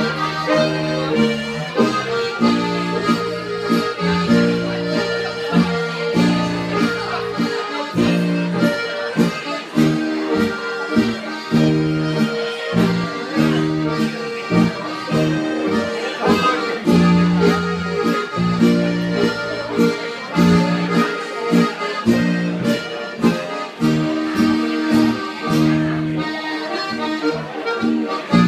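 Live Alpine folk band playing, two accordions leading over acoustic guitar and keyboard, with a steady beat.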